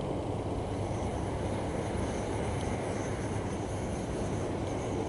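Steady low rumbling background noise with no distinct sounds in it.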